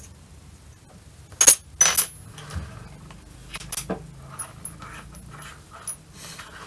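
Small thin aluminum wrenches being set down on a workbench and shuffled into a row: two sharp metallic clinks about a second and a half in, then lighter taps and clicks as they are arranged.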